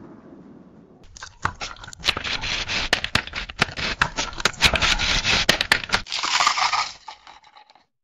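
The fading tail of a lightning-flash sound effect, dying away over the first second. Then about six seconds of secretive whispering, a breathy hiss broken by many sharp clicks, which stops about seven seconds in.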